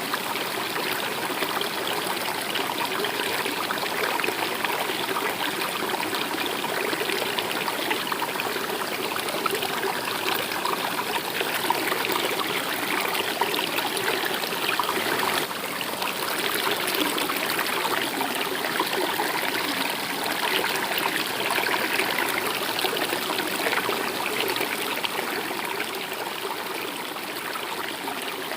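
A river stream running, with steady, even water noise and no breaks.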